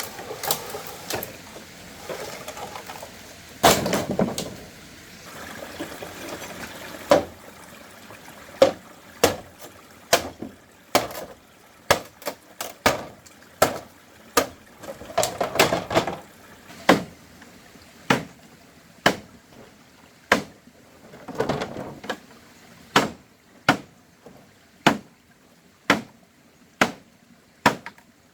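A run of sharp knocks or chops, about one a second, with brief rustling and scraping sounds between some of them.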